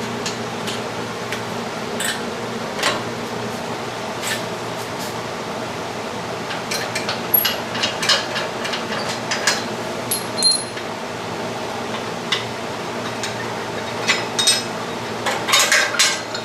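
Irregular metallic clinks and knocks of a socket wrench and steel bolts, nuts and washers as a steel home-gym frame is unbolted, in clusters about seven to ten seconds in and again near the end, over a steady background hum.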